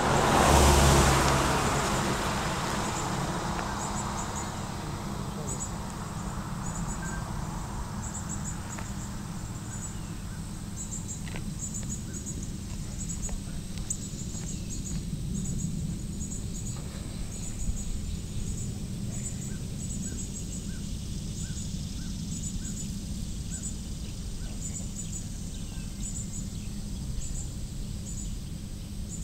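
Outdoor trackside ambience: a rush of noise fades over the first few seconds, then a steady low rumble carries on under small high bird chirps that repeat in quick clusters.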